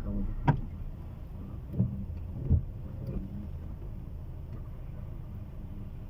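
A car running, its engine and road noise heard from inside the cabin as a steady low hum. Three short knocks come in the first three seconds, the first the loudest.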